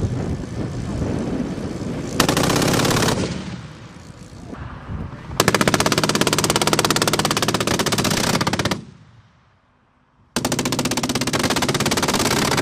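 Avenger's 12.7 mm (.50 calibre) M3P machine gun firing in rapid bursts: a short burst about two seconds in, then two long bursts of about three seconds each, split by a brief silence.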